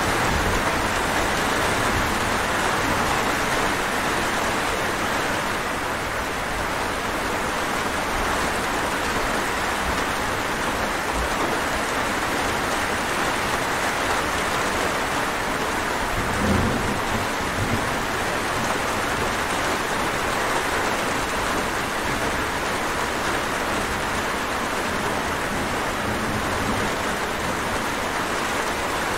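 Steady rain falling, an even hiss of many drops. A brief low rumble sounds a little past halfway.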